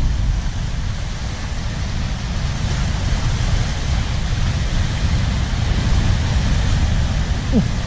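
Small waves washing and breaking over a shallow rocky shore, a steady rushing noise, with wind buffeting the microphone as a heavy low rumble.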